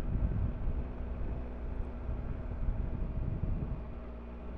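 Triumph Tiger three-cylinder motorcycle engine pulling steadily in first gear up a steep climb, heard over the low rumble of wind on the microphone.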